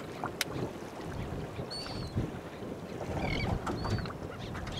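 Birds calling over the water: a few short, high, arched calls, over steady wind buffeting the microphone.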